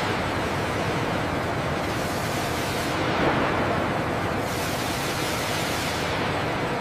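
A steady rushing hiss over a low rumble, swelling slightly about three seconds in.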